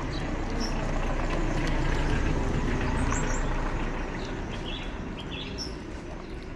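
A motor vehicle passing along the street, its low noise swelling to a peak about two seconds in and then slowly fading, with small birds chirping briefly over it.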